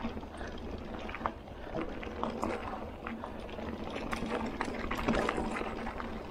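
Mountain bike rolling along a packed-dirt trail strewn with dry leaves: steady tyre crunch with dense, irregular clicks and rattles from the bike, picked up by a camera mounted on the handlebars.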